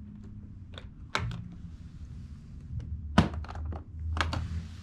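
Metal draw latches on a hard-shell trombone case being flipped open: a few sharp metallic clicks and snaps, the loudest about three seconds in, over low bumps of the case being handled.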